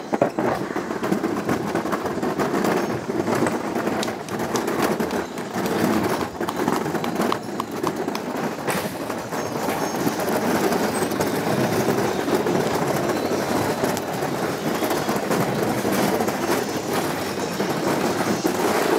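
Steady rumbling clatter of an alpine slide sled's small wheels rolling over wooden boardwalk planks and pavement, with many small clicks.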